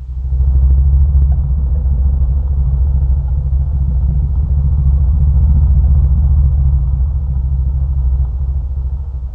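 Speculative dinosaur call made from slowed-down bird recordings: one deep, rough, rumbling call held steady for about nine seconds, easing off near the end.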